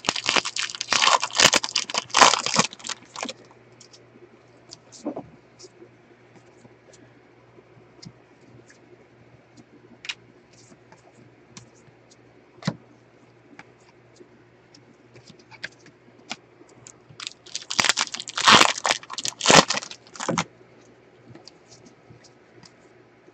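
Foil trading-card pack wrappers crinkling and tearing open in two bursts of a few seconds each, one at the start and one near the end, with faint clicks and slides of cards being flipped through in between.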